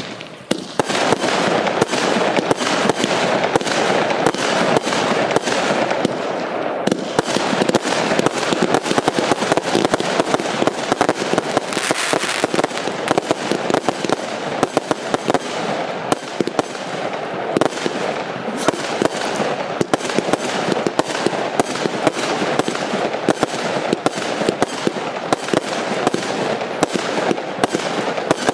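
A 96-shot consumer firework battery of 20 and 25 mm tubes firing in rapid succession: a dense, unbroken stream of launch thumps and shell bursts, several a second, starting about half a second in.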